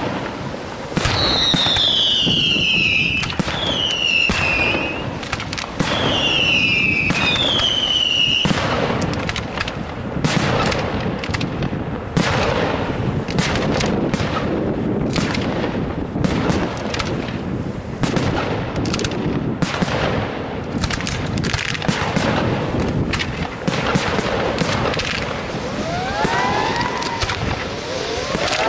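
Aerial fireworks display: shells bursting in rapid, overlapping succession. Four falling whistles sound over the bursts in the first eight seconds, about one every two seconds, and a few rising whistles come in near the end.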